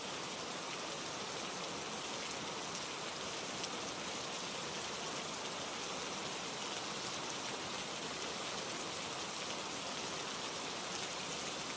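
Steady rainfall, an even hiss of rain falling on a surface, with no change in intensity.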